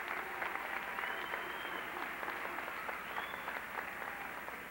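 Audience applause, a dense patter of many hands clapping that slowly dies down.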